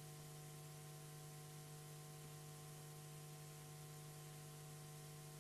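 Near silence: a cut-off sound feed carrying only a faint steady hum and light hiss.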